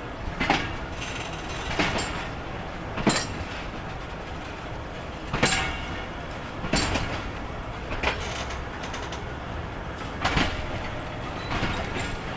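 Passenger train's wheels clacking over rail joints as it pulls slowly out of the station, heard from a coach window: a sharp clack every one to two seconds over a steady rolling rumble.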